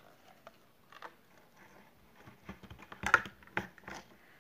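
Light clicks and taps of hands handling a small cup and its cover, scattered at first, with a quick run of sharper taps about three seconds in.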